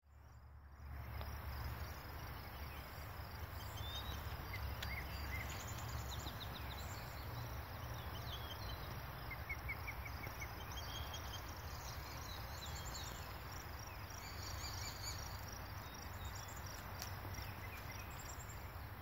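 Open meadow ambience: scattered short bird chirps and trills over a steady hiss, with a low rumble underneath.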